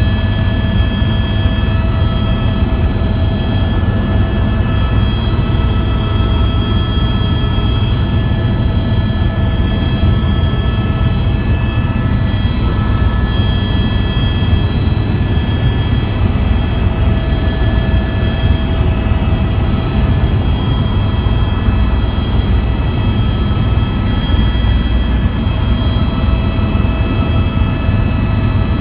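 Tour helicopter in flight: a steady, loud rotor and engine din with a constant high turbine whine over it.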